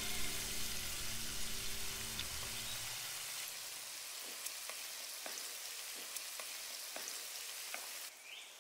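Whole shell-on prawns frying in hot oil in a wok: a steady sizzle with a few sharp pops, cutting off suddenly near the end.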